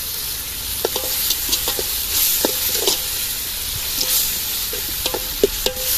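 Chopped onions and tomatoes frying in oil in an aluminium pot, sizzling steadily, while a metal ladle stirs in fresh coriander leaves and clinks against the pot a handful of times.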